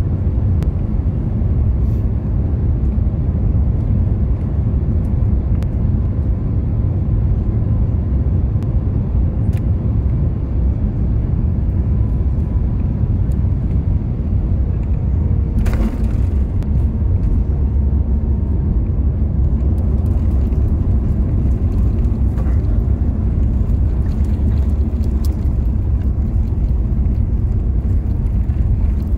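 Steady, loud low rumble inside the cabin of an Airbus A350-900 airliner, with a single knock about halfway through and light rattling clicks near the end.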